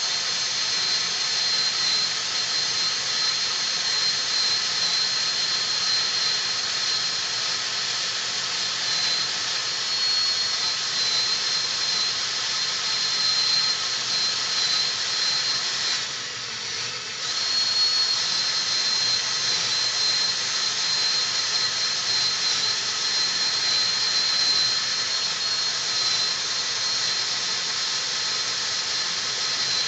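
Electric drill with a carbide-tipped bit boring slowly into a gun safe's hardened steel hard plate: a steady grinding with a high whine, easing for about a second near the middle.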